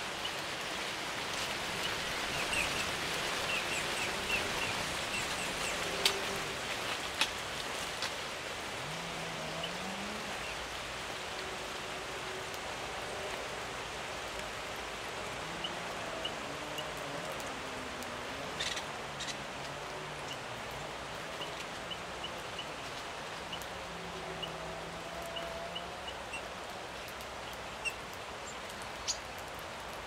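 Small garden birds chirping in short series of high chirps over a steady hiss, with a few sharp clicks mixed in.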